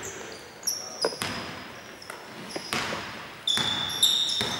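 A basketball dribbled on a hardwood court: several separate bounces echoing in a large, empty hall. Short high squeaks of sneakers on the floor sound between them.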